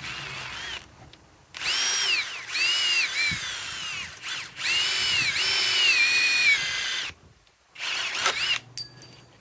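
Cordless impact driver driving a TimberLOK screw, its motor whine rising and falling in several spurts that start and stop: the tool is acting up on its adapted Flex battery.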